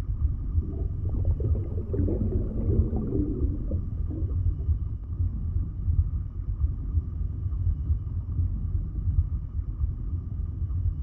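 A steady low rumble, with a faint steady high hum over it and a rougher, gurgling mid-pitched sound for a few seconds after the start.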